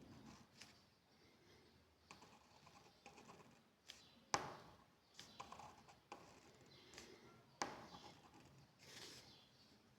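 Faint scratching of a pen on paper as a drawing is made, with scattered small taps and two sharper clicks, about four and seven and a half seconds in.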